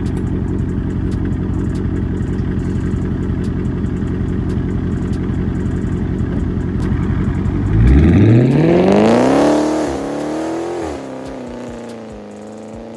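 2020 Dodge Charger Scat Pack's 6.4-litre HEMI V8, fitted with Carven 5-inch exhaust tips, running with a steady low rumble. About eight seconds in it revs hard as the car launches, the pitch climbing steeply for about two seconds. It then settles to a lower tone and fades as the car pulls away.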